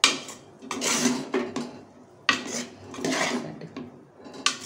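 A metal spoon scraping and knocking against a metal cooking pot as egg fried rice is stirred: a sharp knock at the start, then several scraping strokes about a second apart.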